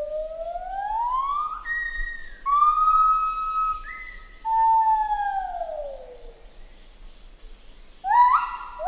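Lar gibbon song: a long upward-gliding note, a held note, then a long falling glide. Near the end comes a quick run of short rising notes.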